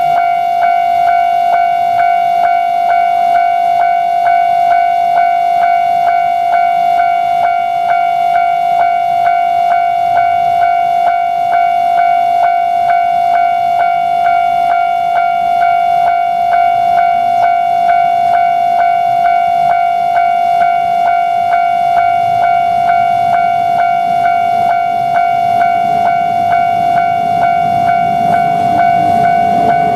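Japanese railway level-crossing alarm ringing its rapid, repeating electronic 'kan-kan' tone, steady and loud. Near the end the rumble of an approaching train begins to rise beneath it.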